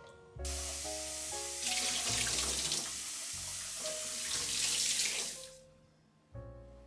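Water running from a tap into a sink in a steady stream for about five seconds, shut off near the end.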